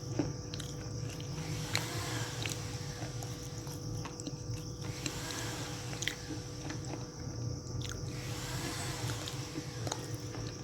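A person biting and chewing crunchy baked edible clay, giving sharp crisp crunches every second or so, over a steady low hum.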